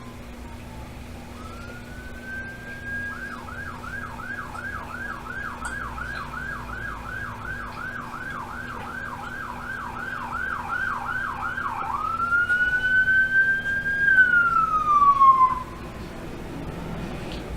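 Emergency vehicle siren going by. It opens with a rising wail, switches to a fast yelp of about two and a half cycles a second, then gives a long wail that rises and falls before cutting off abruptly. It grows louder toward the end.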